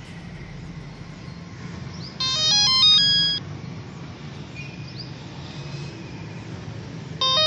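Cordless telephone handset ringing with a short electronic ring melody, twice, about five seconds apart. The ringing comes on the newly connected telephone line being tested at the distribution box.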